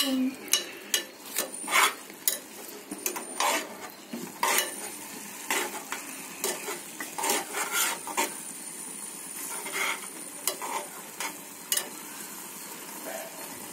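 A slotted steel spoon stirring and scraping grated carrot through milk and ghee in a metal pot, with irregular clinks and scrapes against the pot over a low sizzle. The carrot halwa is being cooked down until the milk dries off.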